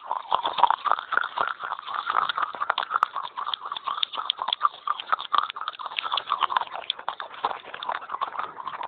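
Pieces of baked clay pot crunched and chewed close to the microphone: a rapid, dense run of crackling crunches.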